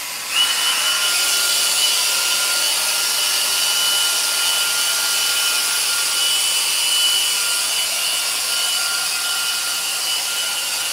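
A small electric motor running steadily, a whirring hiss with a thin high whine that starts about half a second in.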